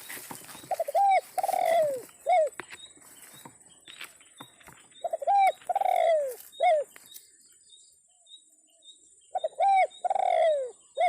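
Spotted dove cooing: three repeated phrases about four seconds apart, each a couple of short coos and one longer coo that falls in pitch, then a final short note.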